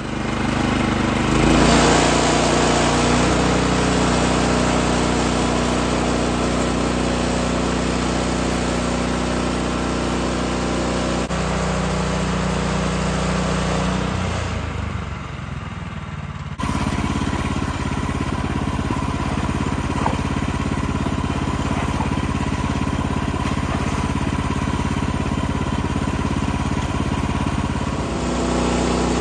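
Woodland Mills HM126 portable bandsaw mill's Kohler gasoline engine running steadily. Its note shifts about a second in and again around 11 seconds. It drops off for a couple of seconds around 15 seconds in and comes back abruptly.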